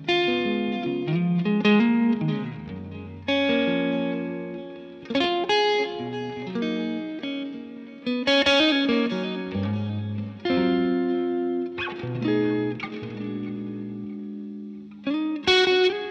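Fender Stratocaster electric guitar played through the Universal Audio OX Amp Top Box's speaker-cabinet and mic simulation: a lead passage of ringing chords and held single notes. A new note or chord is struck every second or two and left to ring out.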